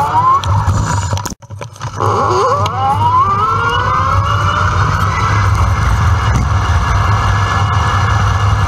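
Electric bike's hub motor whining, dropping out briefly about a second and a half in, then rising steadily in pitch as it picks up speed and levelling off, over a constant rumble of wind on the microphone.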